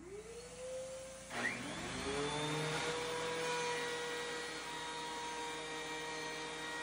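DeWalt benchtop thickness planer starting up with a rising whine, rising again about a second and a half in, then running steadily as a board feeds through it with cleaned feed rollers and freshly turned blades.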